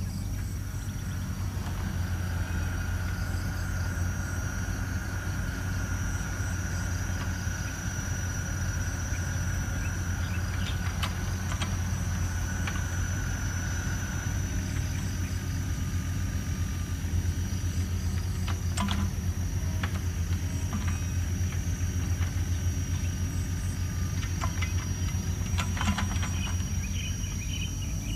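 A steady low rumble, whose source is not shown, with a continuous high-pitched insect buzz over it. A few short faint chirps and clicks come in the second half.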